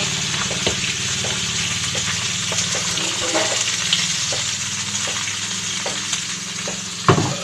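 Vinegar-marinated horse meat frying steadily in a hot pan over a wood fire. There are small clicks and scrapes as the meat is pushed off a plate and mixed, and one louder thump near the end.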